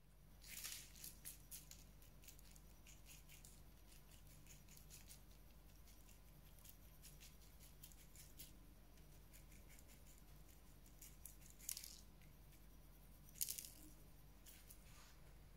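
Granulated sugar sprinkled from a glass bowl onto sliced apples in a baking tin: a faint, fine pattering of grains, with a few louder spells about half a second in and twice near the end.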